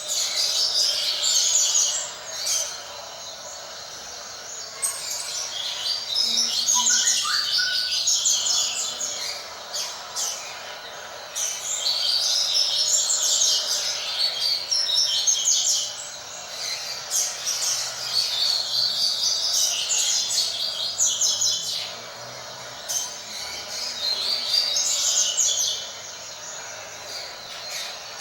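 Double-collared seedeater (coleiro) singing the tui-tui song: high, fast-chattering phrases a few seconds long, about five of them, separated by short pauses.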